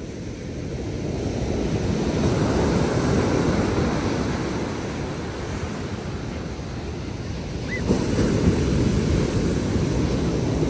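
Ocean surf breaking and washing up a sandy beach, swelling louder about two seconds in, easing off, then rising again near the end as another wave comes in. Wind buffets the microphone.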